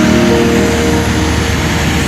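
Background music with long held notes, the pitch shifting just after the start, over a steady rushing noise.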